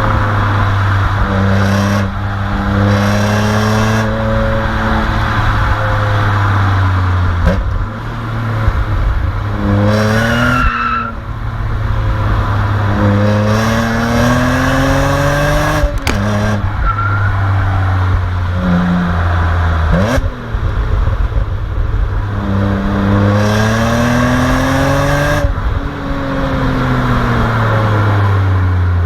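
BMW E46 M3's straight-six engine running hard, its pitch climbing over a few seconds and then dropping back, several times over.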